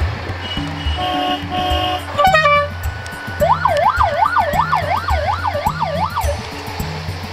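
Electronic siren wailing, sweeping rapidly up and down about twice a second for about three seconds, preceded by two short beeps and a quick falling chirp, over background music with a steady bass beat.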